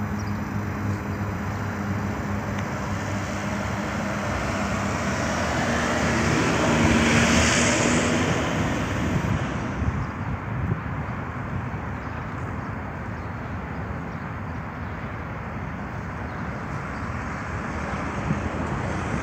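Outdoor engine noise: a low steady engine hum under a rushing background. A louder passing sound swells to a peak about seven seconds in and fades away by ten seconds.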